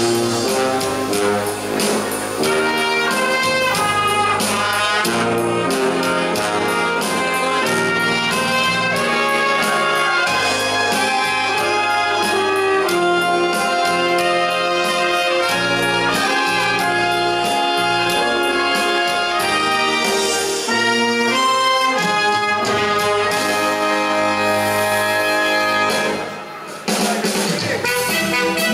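Brass band music with a steady beat, horns playing an upbeat tune over drums; it drops away briefly near the end, then comes back in.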